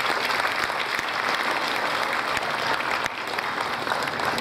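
Crowd applauding, many hands clapping in a dense, steady patter.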